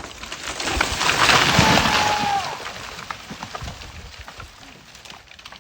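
A felled tree coming down: a rush of crashing branches and leaves that swells about a second in, is loudest around two seconds in, then dies away.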